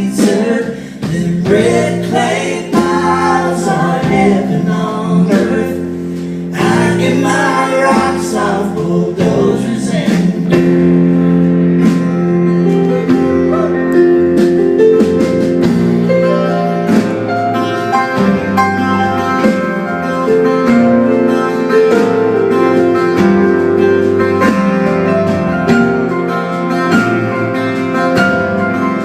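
Music: singing voices over guitar for about the first ten seconds, then guitar chords playing steadily with no voice, as an intro to a song.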